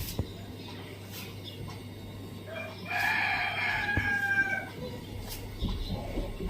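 A rooster crows once, a pitched call of nearly two seconds starting about three seconds in and dropping slightly in pitch at its end. A faint steady hum lies underneath.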